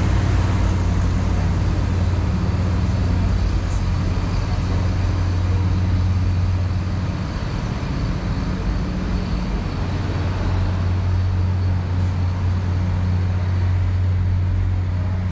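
Street traffic noise dominated by a steady low vehicle engine hum, over a general wash of city street sound.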